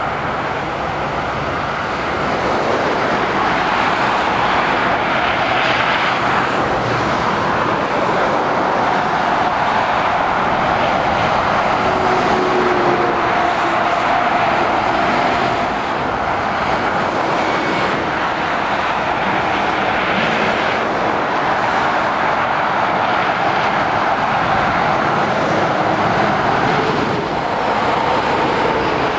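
Motorway traffic passing below: heavy goods lorries and cars, a steady rush of tyre and engine noise that swells and eases a little as vehicles go by.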